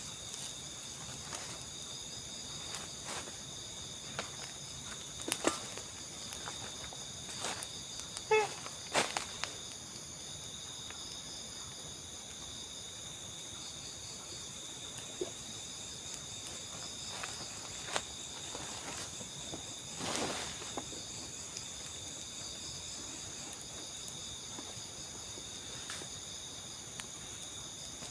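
Steady, high-pitched chorus of crickets and other night insects, with a few sharp clicks and rustles around 5, 8 to 9 and 18 seconds in and a longer rustle about 20 seconds in.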